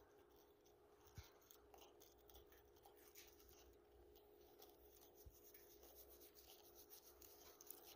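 Near silence: room tone with a faint steady hum and a few faint scattered clicks and ticks, more of them in the second half.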